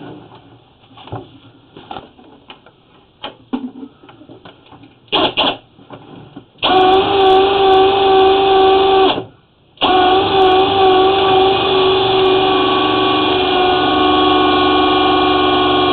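Flex-shaft drain-cleaning machine running steadily, spinning its chain cutter to clear tree roots in a clay sewer line. It starts about six and a half seconds in, cuts out briefly a little past the middle, then runs on. Before it starts there are only scattered light knocks and clicks.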